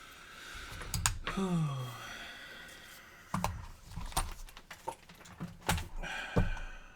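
Handling clicks and knocks of small hard objects on a workbench, about half a dozen spread irregularly, with a short falling voiced hum like a sigh about a second and a half in.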